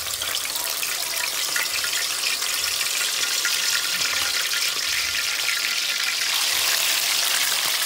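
Seasoned chicken pieces sizzling steadily in a pot of hot oil, just put in to fry.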